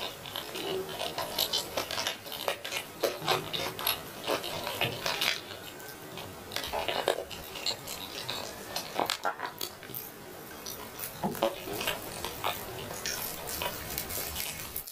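Roast chicken being torn apart by hand: close, irregular crackling and tearing of the crisp skin and meat.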